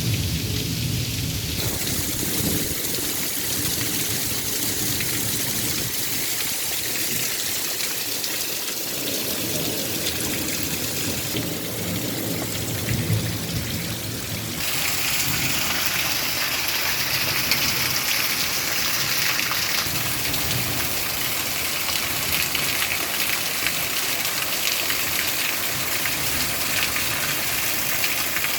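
Heavy rain pouring steadily in a thunderstorm, growing louder and brighter about halfway through.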